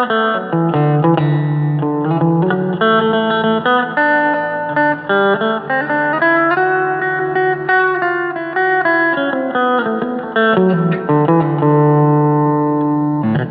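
Agile TC 625 electric guitar played with a little reverb: a run of picked notes and chords, ending on a long held chord that is cut off near the end.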